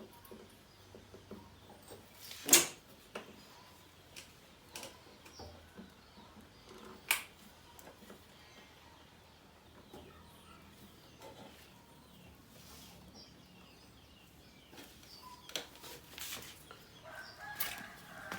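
Scattered clicks and knocks of hand work, with two much louder sharp knocks, about two and a half and seven seconds in. A short pitched call or squeak comes near the end.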